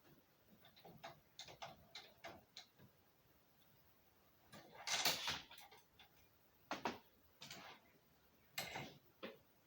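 Faint small metallic clicks and ticks from handling a brake-pipe flaring tool and a freshly flared 3/16 brake pipe. A louder scrape or rattle comes about five seconds in, and a few more clicks follow near the end.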